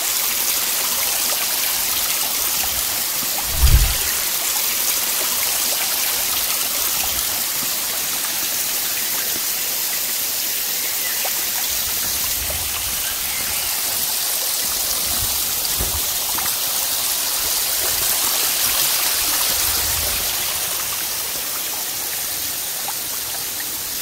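A forest stream running over rocks: a steady rush of flowing water. A brief low thump sounds a few seconds in.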